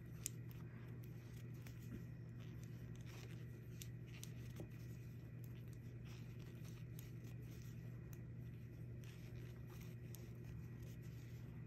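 Faint clicks and scratches of translucent plastic knitting needles and yarn as knit stitches are worked, over a steady low hum.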